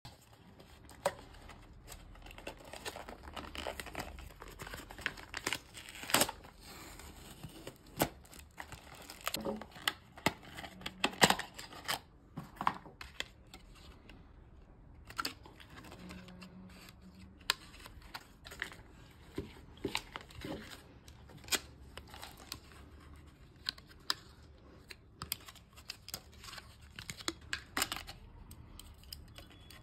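Packaging being opened by hand: a paper mailer rustling and tearing, and a stiff clear plastic blister pack crinkling and clicking as it is worked open with scissors. The sound is a string of irregular sharp clicks and crackles.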